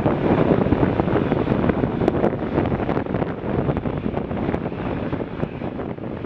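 Airbus A340-300's four CFM56 turbofan engines at take-off power, a broad low engine noise fading steadily as the aircraft climbs away, with wind buffeting the microphone.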